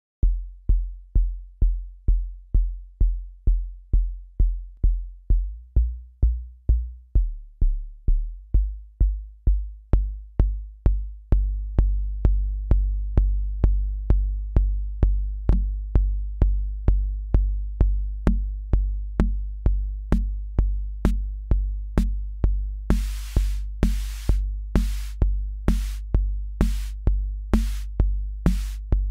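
Akai Rhythm Wolf analog drum machine playing a steady kick drum pattern, about two beats a second. Its bass synth comes in with a low pulsing line about ten seconds in, and noisy hiss-like percussion hits join between the beats near the end.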